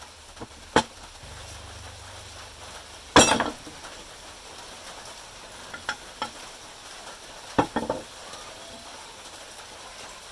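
A handful of sharp metal knocks and clinks as a 150 cc motorcycle engine's crankshaft is worked loose and lifted out of the crankcase, the loudest about three seconds in, with a cluster of quicker ones near the end.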